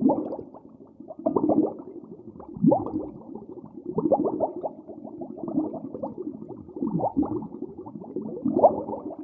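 Several animals calling over one another, with many short, low, overlapping calls, some gliding down in pitch.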